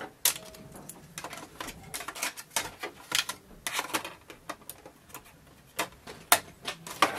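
Irregular light clicks and knocks as a CD is handled and loaded into a laptop's side optical drive tray.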